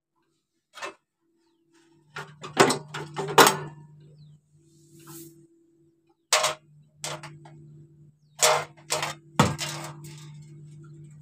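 Perforated sheet-metal silencer cover of a fogging machine clanking as it is handled: a run of sharp, irregular metallic knocks, loudest in a cluster a couple of seconds in and again later. A faint steady hum sits underneath.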